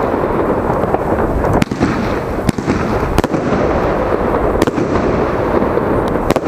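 Geisha Double Demolition firework going off: a continuous loud rushing and crackling, broken by several sharp bangs at irregular intervals.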